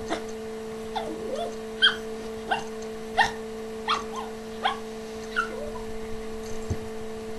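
Small Yorkshire terrier giving a string of short, high yips, about one every three-quarters of a second, each dropping in pitch. The dog is worked up by the offer of a ride. A steady electrical hum runs underneath.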